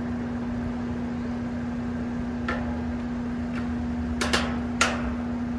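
Home AC condenser unit running with its newly replaced condenser fan motor spinning and moving a lot of air: a steady hum over a low rush. A few short sharp clicks sound over it, one about halfway and three near the end.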